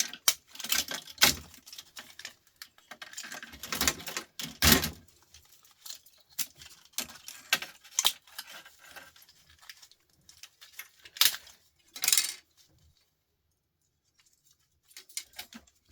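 Small metal parts of an old record player being handled during hand disassembly: irregular clinks, clicks and knocks, with a cluster of louder ones in the first few seconds, and a couple of seconds of near quiet near the end.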